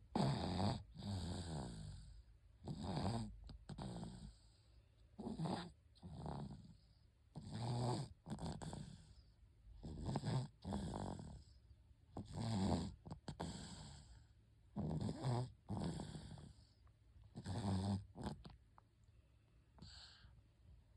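A sleeping baby snoring, with a rough snore on each breath, in and out, about every two and a half seconds. It sounds like an adult's snoring and grows weaker near the end.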